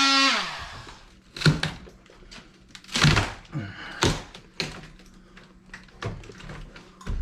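Background guitar music sliding down in pitch and cutting off in the first half second, then scattered, irregular knocks and clunks, about eight sharp hits, from work on a wood-framed wall.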